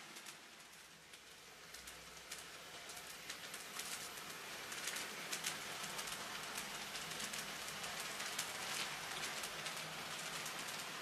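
N-scale model train, a class 65 tank locomotive hauling passenger coaches, running on the track with a dense crackle of fine clicks from the wheels. It grows louder about four seconds in as the train comes closer.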